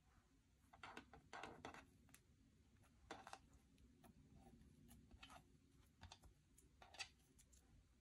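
Faint slime being worked by hand, giving irregular soft clicks and crackles in little clusters about a second in, around three seconds and near seven seconds.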